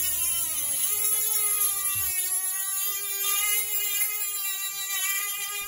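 Dremel rotary tool with an abrasive cutoff wheel running at high speed and cutting the sprue and gate off a cast metal turnout frog: a steady high whine with a grinding hiss, its pitch wavering slightly as the wheel bites into the metal.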